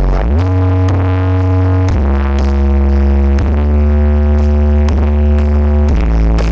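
Electronic dance music played very loud through a large carnival sound-system rig. It has a heavy, booming bass line under sustained synth chords that change about every second and a half.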